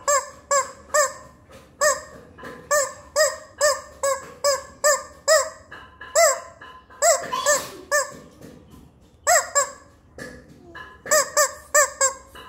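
Yellow rubber squeaky chicken toy being squeezed over and over, letting out many short honking squawks in quick runs, with a brief pause about ten seconds in.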